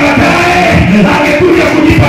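A man singing a gospel song into a handheld microphone over music, holding long notes.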